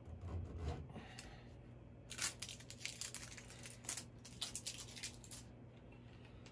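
Plastic packaging crinkling and rustling in a run of irregular crackles from about two seconds in to past the five-second mark, over a faint low hum.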